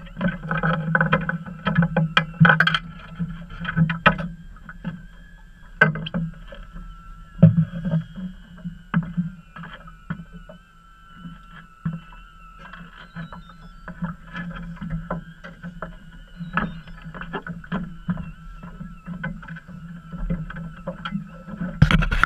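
Small fishing boat rocking on open water: knocks and slaps against the hull and gear. A steady high whine runs underneath, and there is a loud knock and rustle near the end.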